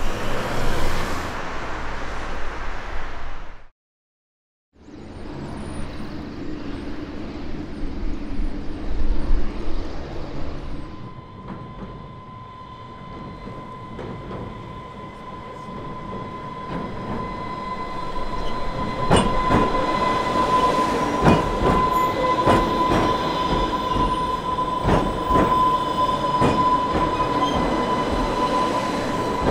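Class 484 electric train on the Island Line, a steady whine with rail noise, growing louder about two-thirds of the way in as clicks from the wheels over rail joints come through. A brief cut to silence comes about four seconds in.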